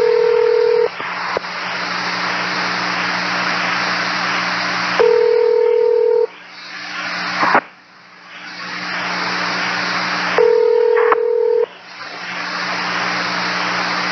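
Railroad radio channel heard through a scanner: steady static hiss with a low hum, broken three times by a steady beep tone about a second long, repeating roughly every five seconds. A sharp click comes about midway, and the hiss drops away and then swells back.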